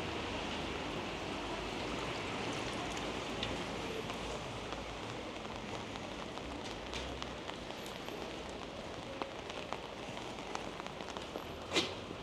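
Steady rain falling, with scattered drops ticking on an umbrella overhead and one louder tick near the end.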